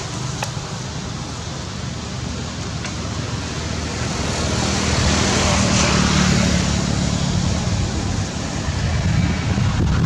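Steady outdoor background noise that swells from about four seconds in to a peak near six seconds, then eases off.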